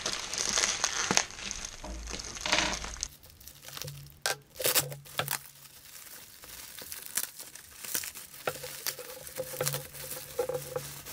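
Clear plastic wrapping crinkling and rustling as it is pulled off an RC transmitter. It is dense and continuous for the first three seconds or so, then turns into scattered crackles and clicks.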